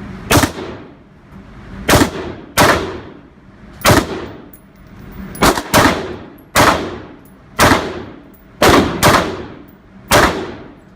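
AR-15 rifle firing single semi-automatic shots at an uneven pace, about a dozen in all, each crack followed by a short ringing echo.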